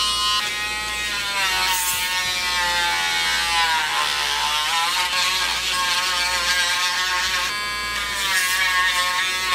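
Cordless Dremel 7300 rotary tool running at speed with a sanding drum, grinding the rough edge of a cast epoxy-resin disc. Its steady high whine dips in pitch around the middle and climbs back as the drum is pressed against the edge.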